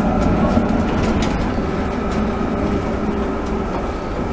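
Tram heard from inside while running along the track: a steady rumble of wheels on rail with a low hum, and a few faint clicks.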